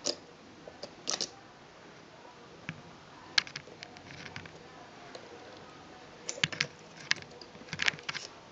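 Irregular sharp metal clicks and taps from the shuttle of a Bernhard Stoewer transverse shuttle sewing machine and its slide plate being handled by hand, with small clusters of quick clicks near the middle and toward the end.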